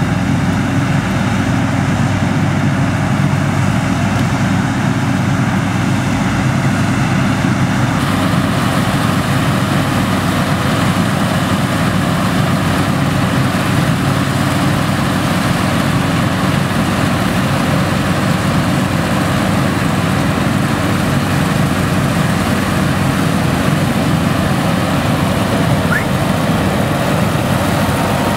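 Nuffield tractors pulling trailed Dronningborg combine harvesters through the crop: a steady, dense mix of several tractor engines and threshing machinery running together. The sound turns brighter about eight seconds in.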